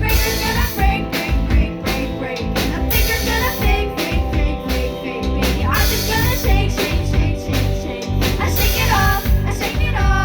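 Live rock band playing: drum kit with crashing cymbals driving the beat under electric guitar, with a singer's voice coming in near the end.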